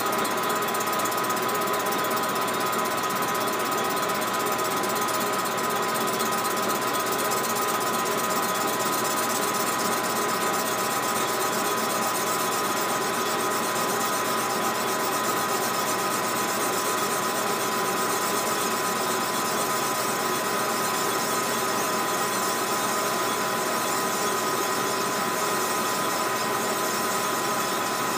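Small metal lathe running steadily while machining an aftermarket Stihl MS 660 chainsaw cylinder held in its chuck, with a steady high whine over the machine noise.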